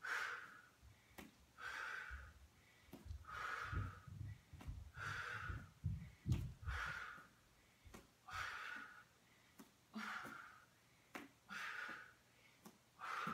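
A woman breathing hard through an exercise hold: a short, forceful exhale repeats steadily about every second and a half, with a few soft low thumps in the middle.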